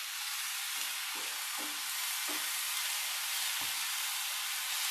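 Sliced onions sizzling steadily in hot coconut oil in a frying pan, with a wooden spatula stirring through them in several short strokes.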